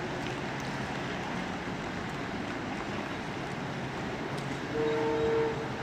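Steady rumble and hiss of trains at a railway station, with a train horn sounding for under a second near the end.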